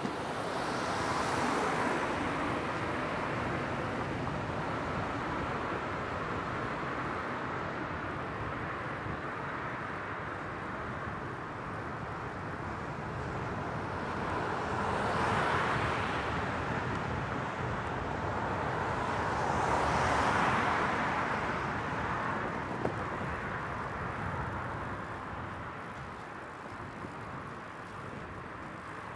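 Street traffic heard from a moving bicycle: a steady road hum, with cars passing and swelling up and fading three times, once near the start and twice in the second half.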